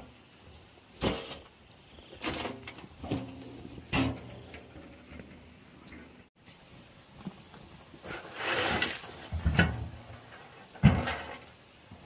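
Loose soil being dumped from a metal container and worked onto a pile: a series of dull thuds and scrapes, with a longer rush of sliding earth past the middle and the sharpest thump near the end.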